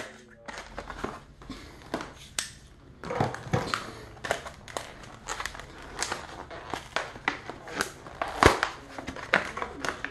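A knife's plastic-and-cardboard retail packaging crackling and crinkling as it is handled and pulled apart, with many irregular sharp snaps and clicks.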